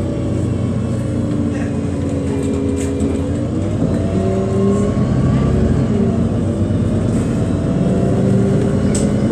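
City bus's engine and drivetrain running, heard from inside the cabin over road rumble. The engine's pitch dips and then climbs again about three to four seconds in as the bus slows and pulls away.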